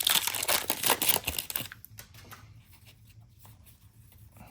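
Foil wrapper of a trading card pack being torn open, a loud crackly rip lasting about a second and a half, followed by faint handling of the cards.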